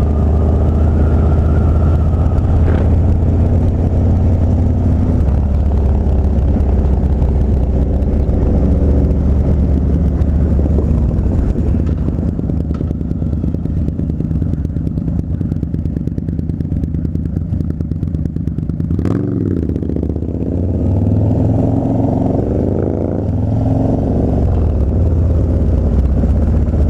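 Harley-Davidson Dyna Street Bob's V-twin engine running under way. It holds a steady note at first, eases off through the middle, then revs up again as the bike accelerates, with a single sharp click just before.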